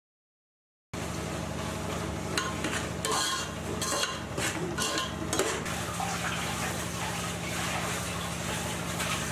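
A spoon stirring thick tomato masala in a metal pot, clicking and scraping against the pan for a few seconds, over a steady hum and hiss of cooking. The sound starts abruptly about a second in.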